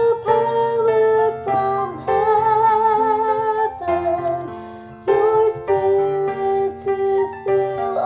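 A female soprano voice singing a church choir part over electric keyboard accompaniment, holding notes with vibrato from about two seconds in, with a short drop in level just before the fifth second.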